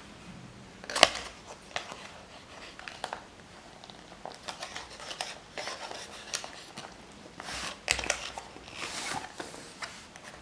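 A smartphone's cardboard retail box being opened and handled: scattered clicks and taps with short scrapes and rustles of cardboard and packaging, and a sharp click about a second in.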